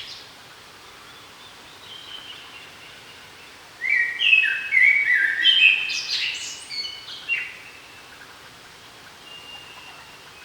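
A songbird sings one loud phrase of quick stepped notes, starting about four seconds in and lasting about three and a half seconds. Fainter notes from other birds come over a steady outdoor hiss.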